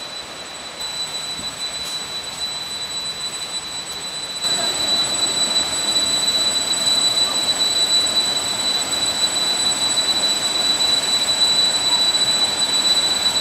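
Cicadas and other forest insects droning, a steady high-pitched buzz over a hiss that gets louder about four and a half seconds in.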